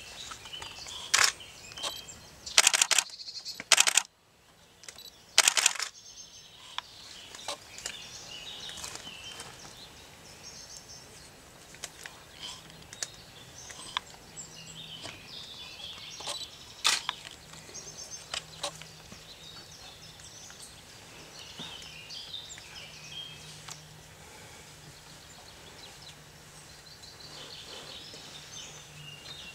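Woodland ambience with small birds chirping and singing throughout, and several loud sharp clicks or knocks in the first six seconds.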